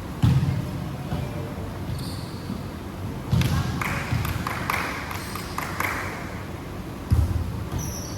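Basketball bouncing on a court: a few heavy thuds a few seconds apart, with short high squeaks and clicks between them in the middle.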